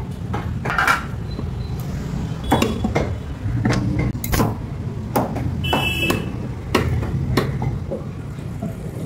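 Heavy meat cleaver chopping goat meat and bone on a wooden stump block: a run of sharp, irregular chops, roughly one or two a second. Near the middle, one blow leaves a short metallic ring. A steady low rumble runs underneath.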